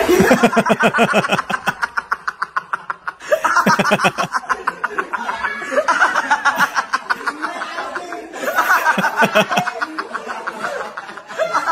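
The camera operator laughing hard and unrestrained, in about five long bouts of rapid 'ha-ha' pulses broken by short catches of breath.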